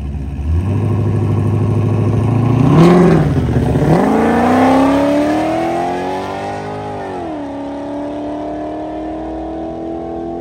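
Turbocharged 5.3-litre LS V8 drag car held at raised revs on the line, then launching with a sharp crack about three seconds in. The revs climb hard through first gear, drop at a gear change near seven seconds, and climb again in the next gear as the car pulls away down the track.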